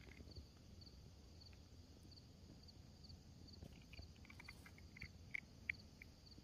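Near silence outdoors: a cricket chirping faintly and evenly, about twice a second, over a low steady rumble, with a few faint small clicks in the second half.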